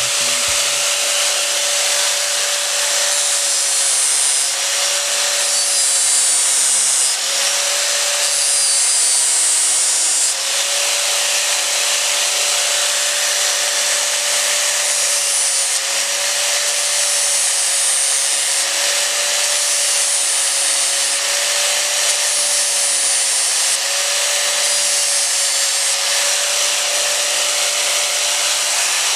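Bosch GWS 7-115 angle grinder, clamped down as a bench grinder, running steadily with a whining motor while a rusty steel piece is pressed against its grinding disc again and again. Each pass adds a harsh high hiss of grinding that lasts a second or more.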